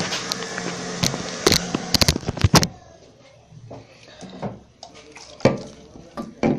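Eljer Savoy toilet flushing: rushing water with several clunks and knocks, cut off abruptly a little over two and a half seconds in, then a few quieter knocks.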